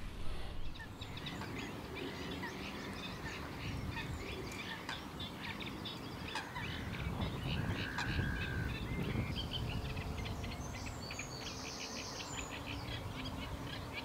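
Mixed birdsong from several small birds, many quick short chirps and trills with one longer whistled note about halfway through, over a low steady background rumble.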